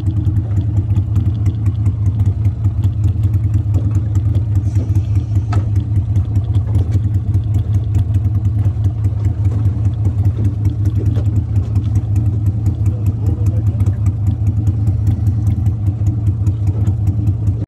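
Boat's Gator-Tail surface-drive mud motor idling steadily, a loud low hum with an even pulse. One sharp knock about five and a half seconds in.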